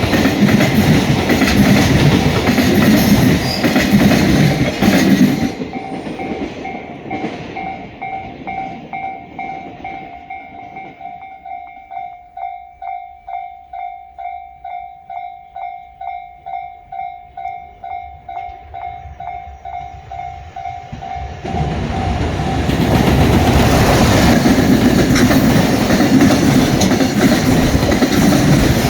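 A JR freight train passing close by with wheels clattering over the rail joints, fading away about five seconds in. A level crossing warning bell then rings in an even pulse about twice a second, until another train comes through loudly after about twenty seconds and drowns it.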